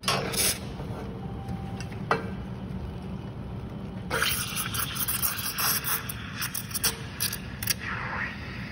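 Espresso machine steam wand frothing milk in a stainless pitcher: a steady hiss over a low machine hum. Sharper, brighter hissing spurts come at the start, about four seconds in, and again several times between about five and eight seconds.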